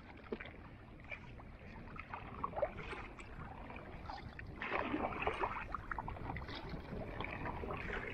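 Kayak paddle strokes dipping and splashing in the water beside an inflatable tandem kayak, over a steady rush of water and wind. The splashing grows louder about five seconds in.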